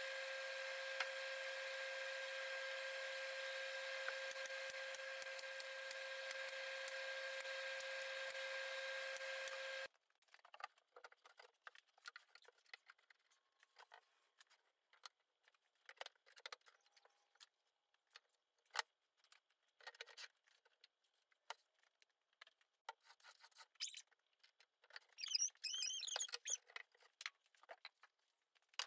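A steady hum with a held high tone for about ten seconds, cutting off abruptly. After that come scattered light clicks, taps and knocks as a curved kerf-cut MDF panel and its clamps are handled, with a brief burst of squeaking near the end.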